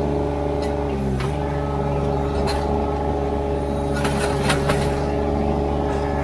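Ditch Witch SK800 mini skid steer's engine running steadily under work. Its pitch sags briefly about a second in as it takes load, with a few short clanks and knocks around the middle.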